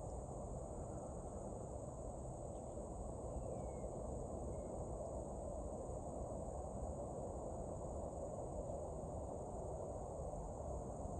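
Steady high-pitched evening insect chorus, with a steady low rumble underneath.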